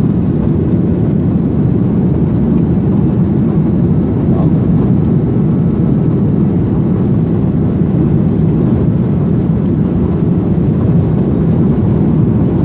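Steady, loud airliner cabin rumble from a seat over the wing: jet engines and rolling noise as the plane moves along the ground.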